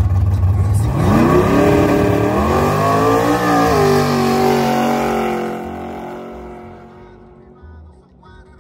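Drag-racing car launching and accelerating hard, its engine note climbing steeply, dipping briefly at a gear change, then fading away down the strip.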